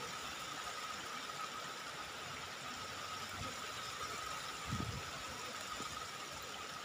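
Steady hiss of rain falling on wet ground and grass, with a thin steady high tone running under it. A soft low thump comes about five seconds in.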